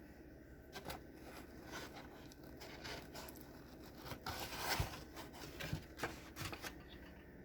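Handling of a microwave omelet maker and its cooked vegetables: scattered light clicks and knocks, with a louder scraping rustle about four to five seconds in.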